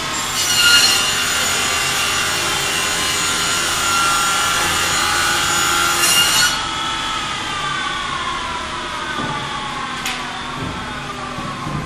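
Door sizing machine's saws cutting along the edge of a wooden door panel for about six seconds, a loud ringing cut. The cut then stops and the saws run on free with a whine that slowly falls in pitch.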